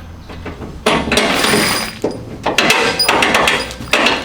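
Metal clattering and scraping of steel hardware as bolts are fed through the mounting holes of fold-out RV steps, in two spells with a light metallic ring.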